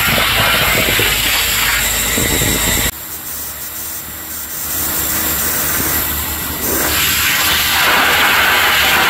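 Hard-surface tile cleaning tool working a tile floor: a steady hiss of water spray and vacuum suction over a machine drone. It cuts off suddenly about three seconds in to a quieter hum, then the hiss builds again and is loud by the end.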